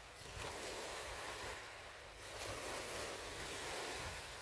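Wind buffeting the microphone, with low irregular rumbles over a rushing wash of noise that swells and eases.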